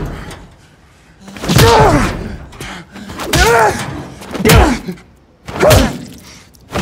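Heavy punches landing on a man in a film fight, with a man's grunt on each blow. The first blow comes after a short lull, then three more follow about a second apart.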